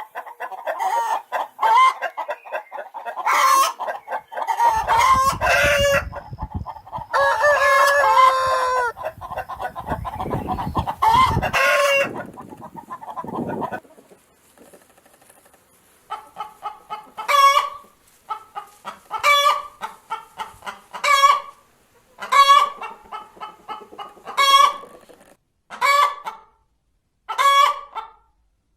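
Chickens clucking and cackling, with a low rumble under the calls in the first half. After a short lull about halfway through, a chicken calls over and over, roughly once a second.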